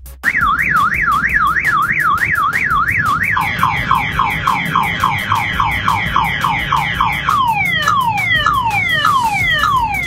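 Motorcycle anti-theft alarm sounding after a kick to the parked bike's tyre. It cycles through its tones: a fast up-and-down warble, about three a second, for some three seconds, then a rapid run of falling sweeps over a steady high tone, slowing to wider-spaced falling sweeps in the last few seconds.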